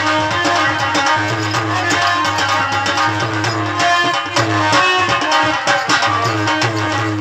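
Live Indian folk music: a harmonium playing sustained notes over a quick hand-drum rhythm, with no singing.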